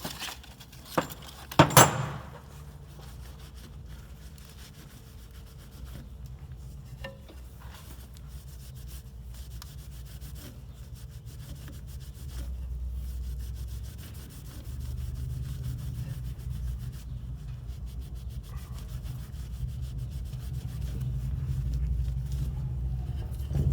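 A steel injector tube tool, such as a reamer, being scrubbed clean by hand: a steady rubbing that grows louder in the second half. A couple of sharp metal clanks come in the first two seconds.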